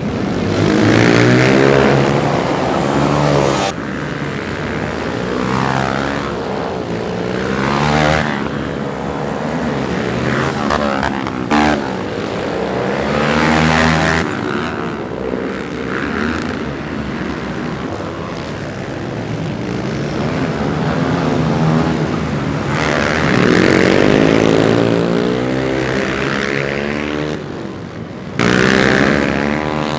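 Dirt bike engines racing on a dirt track, revving up and dropping back again and again as the bikes accelerate and roll off. The sound changes abruptly a couple of times.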